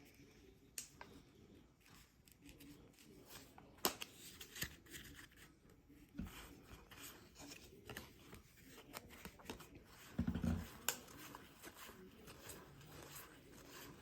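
Trading cards being handled and flipped through: soft scattered clicks, slides and rubs of card stock, with a dull thump about ten seconds in.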